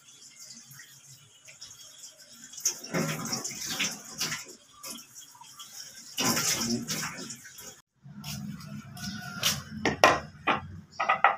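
Tap water splashing into a sink as someone washes at it, in two spells about three and six seconds in. Near the end, a few sharp knocks and clatters.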